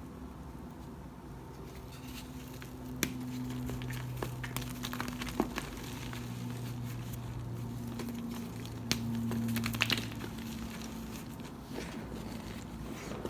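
Dyed chalk cubes crunching and crumbling, with scattered sharp cracks and crackles. A low steady hum runs underneath for most of the stretch.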